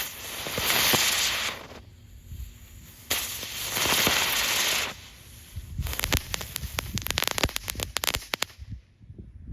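Novelty fidget-spinner firework going off: two long spells of hissing, each under two seconds, then a quick run of crackling pops for about three seconds that stops abruptly.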